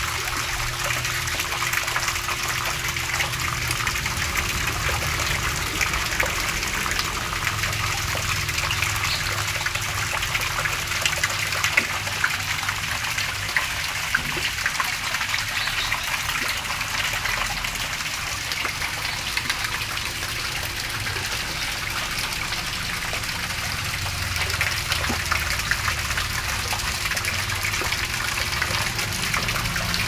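Steady gushing and splashing of falling water, with scattered small ticks.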